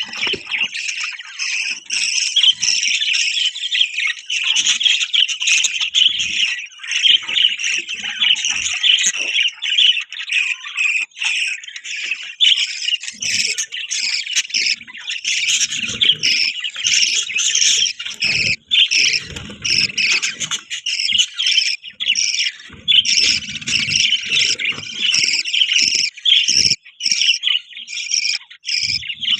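Several budgerigars chirping and chattering continuously in a dense, overlapping warble, with a few soft low thumps mixed in.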